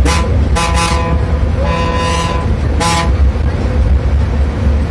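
Bus horn tooting in short blasts: one at the start, a quick double soon after, a longer one about two seconds in and another short one near three seconds. Under the horn is the steady low drone of the bus engine, heard from inside the driver's cabin.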